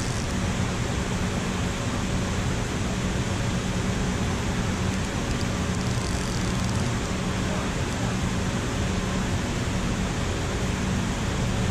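Steady rush of water pouring over a low-head dam spillway, an even roar that holds at one level throughout.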